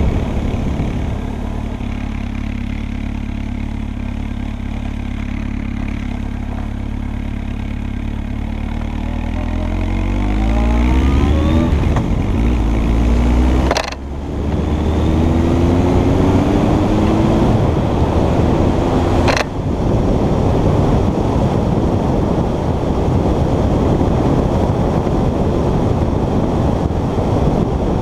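Honda CB1300's inline-four engine heard from the rider's seat, running steadily and then accelerating with a rising pitch, twice. The sound breaks off sharply twice, and the last stretch is mostly wind rushing over the microphone.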